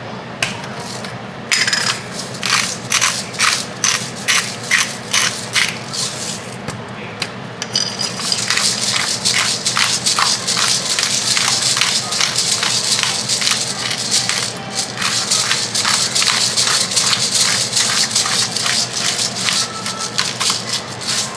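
Salt and pepper grinders being twisted to crack seasoning. First come separate crunching grinds, about two a second. From about eight seconds in it becomes a denser, continuous crackling grind.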